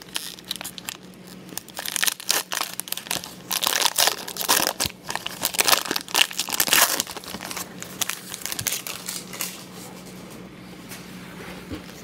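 Foil wrapper of a 2022 Panini Elite Extra Edition baseball card pack being split open from the middle by hand: a run of crackling tears and crinkles, loudest in the middle, dying away after about nine seconds.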